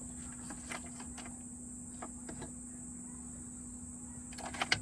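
Steady high-pitched insect chorus, like crickets, with a faint low hum beneath. Scattered light clicks and taps from handling plastic parts, with a quick cluster of louder clicks near the end.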